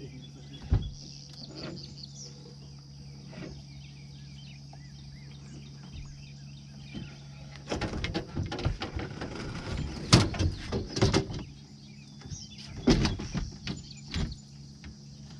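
Knocks and clattering in a fishing boat, starting about halfway through and coming in a busy run with a few loud bangs. Under it runs a steady low hum and a steady high buzz.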